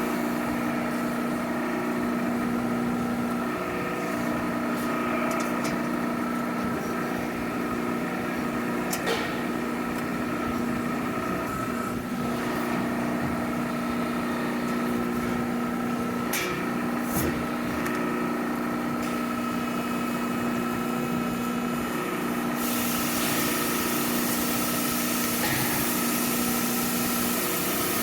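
A machine tool running steadily with a constant motor hum. A few sharp clicks break through, and a high hiss joins in about two-thirds of the way through.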